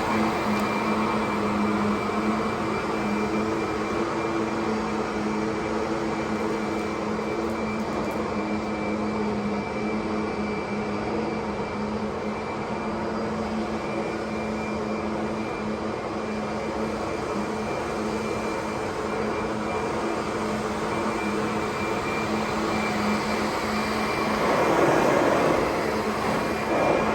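Kirby Sentria upright vacuum running steadily while vacuuming a floor, a constant motor whine over the rush of air. Near the end it briefly grows louder.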